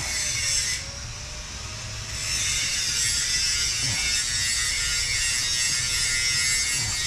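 A power grinder grinding in the background, louder and steady from about two seconds in.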